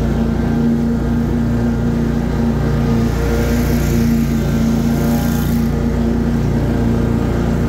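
Riding lawn mower's engine running steadily at a constant pitch, heard up close from the operator's position.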